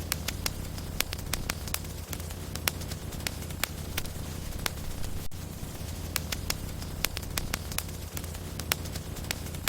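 Wood logs burning in a fireplace: irregular sharp crackles and pops, two or three a second, over a steady low rumble of the fire.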